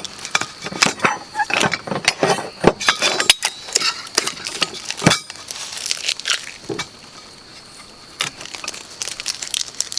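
Stiff plastic packaging crackling and small metal parts clinking as they are handled, a dense run of sharp clicks and rustles that eases off for a moment about two-thirds of the way through.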